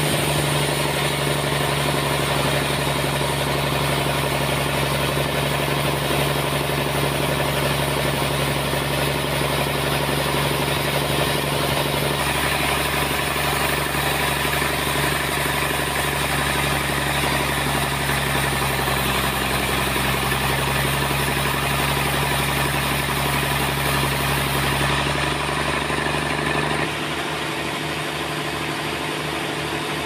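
Band sawmill cutting lengthwise through a trembesi log: a steady motor hum under the dense hiss of the blade in the wood. Near the end the hiss thins and the sound drops a little as the blade clears the log and runs on.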